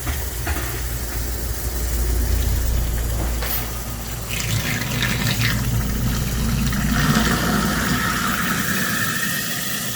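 InSinkErator Evolution Select Plus 3/4 HP continuous-feed garbage disposal running with tap water pouring through it: a steady low motor hum under the rush of water, showing the new unit works.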